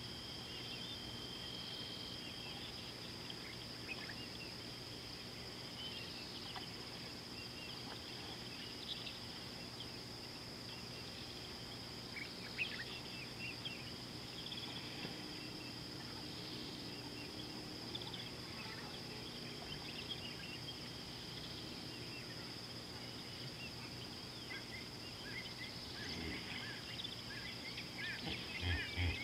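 Bush ambience: a steady high-pitched insect drone with scattered short bird chirps, getting busier near the end.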